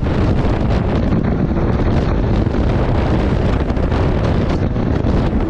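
Steady rush of wind buffeting the microphone over the engine and water noise of a 2021 Kawasaki STX-160 jet ski under way.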